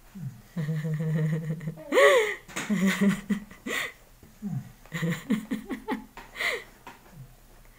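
A man making wordless comic vocal noises. A steady low hum through closed lips is followed about two seconds in by a loud high squeal, then a string of short hums and giggle-like sounds.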